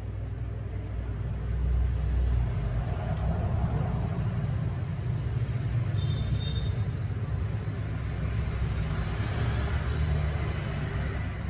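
Steady low rumble of road traffic, with one short high beep about six seconds in.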